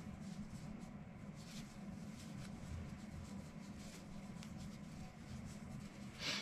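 Faint scratching and rustling of a crochet hook working yarn through stitches, over a low steady hum, with a brief louder rustle near the end.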